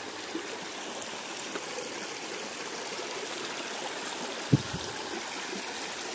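Shallow river water running and trickling over and between stones in a steady rush. About four and a half seconds in there is a short knock, then a fainter one.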